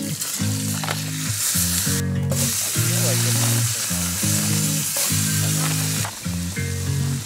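Food sizzling and frying in a hot pan on a propane camp stove, a steady hiss that cuts out briefly about two seconds in. Background music plays underneath.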